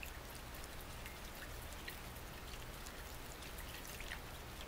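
Plastic spoon stirring PVA glue and water in a glass bowl, making faint, scattered small wet clicks and ticks over a low hiss.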